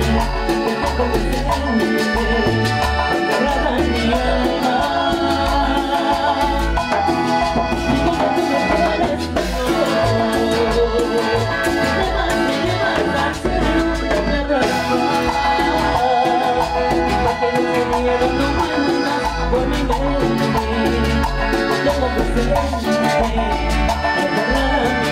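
Cumbia band playing: a male lead vocal over accordion, keyboard, percussion and a bass line with a steady beat.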